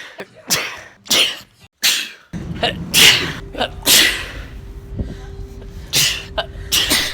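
A man sneezing over and over, short sharp sneezes about a second apart. About two seconds in, a second run of sneezes starts over a steady low hum.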